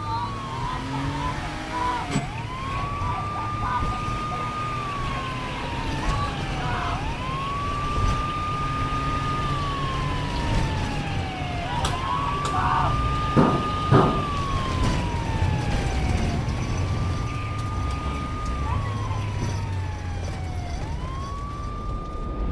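Emergency-vehicle siren wailing. Each cycle rises quickly to a held high note, then slides slowly down, and it repeats about every four to five seconds over a low steady rumble. A couple of sharp knocks come about two-thirds of the way through.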